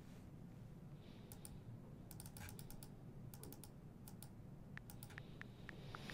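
Faint computer keyboard typing: short runs of key clicks, over a low steady hum.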